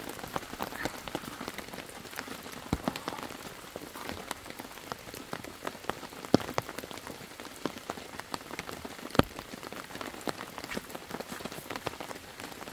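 Steady rain, with drops striking an umbrella held close as frequent sharp taps, a couple of them much louder about six and nine seconds in.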